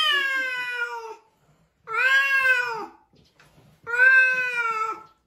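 A domestic cat, the white-and-ginger one, yowling three times in long drawn-out calls, each about a second long and rising then falling in pitch, the first already under way. These are warning yowls at a tabby pressing its face against its head beside the food dish.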